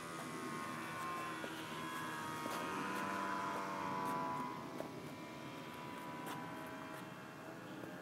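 Motor and propeller of a radio-controlled model plane built as the Starship Enterprise, a steady whine in flight that swells about three to four seconds in as it passes, then fades.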